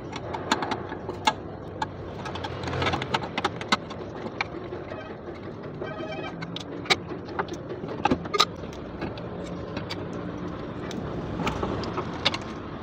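Irregular sharp clicks and knocks over steady background noise, with a short run of quick chirping tones about five seconds in.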